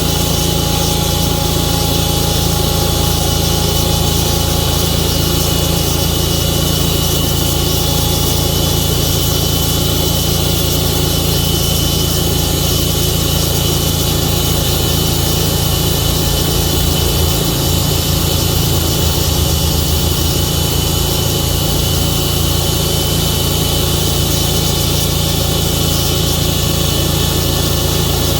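Engine of a Tru-Cut sawmill running steadily at a constant speed, its low note wavering briefly past the middle.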